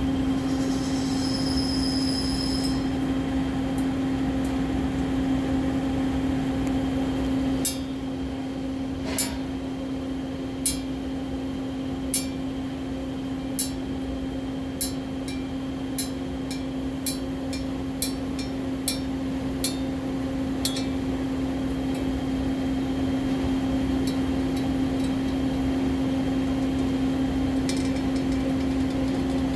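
MIG welding setup giving a steady hum over a background hiss. Through the middle there are about a dozen sharp metallic ticks roughly a second apart.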